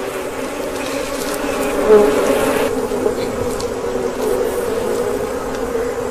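A swarm of African honeybees buzzing around their hive, a dense steady drone that swells briefly about two seconds in; the colony is stirred up by the honey raid.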